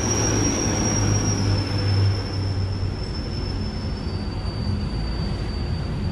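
A large engine running steadily with a low hum, overlaid by a thin high whine that steps down slightly in pitch twice.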